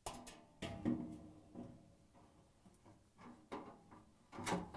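Gas range's storage drawer being lowered and fitted back into its opening: a scattering of short clunks and rattles, the loudest near the end.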